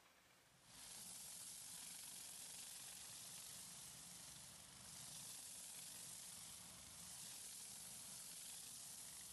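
Titan pressure washer (12 GPM at 1200 PSI) spraying a jet of water against an excavator's steel track: a steady hiss that starts about a second in.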